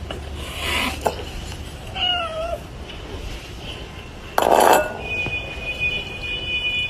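A domestic cat gives one short meow that bends in pitch, about two seconds in, among light knocks. A little past the middle comes a sudden, loud, brief rush of noise, and a faint steady high tone follows.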